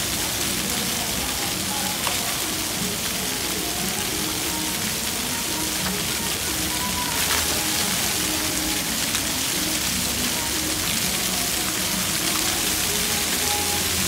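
Steady hiss and splatter of many fountain water jets falling back onto wet paving, with a melody playing underneath.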